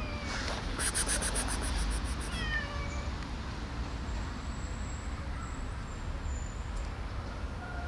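A cat meowing in falling calls: one at the start, one about two and a half seconds in, and another beginning near the end. Between about one and two and a half seconds in there is a rapid high chirping of about six pulses a second.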